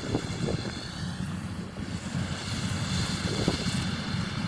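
Combine harvester running with a steady engine drone.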